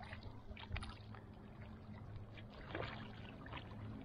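Faint splashes and drips of a double-bladed kayak paddle dipping into the lake water as a small sit-on-top kayak is paddled, over a low steady rumble.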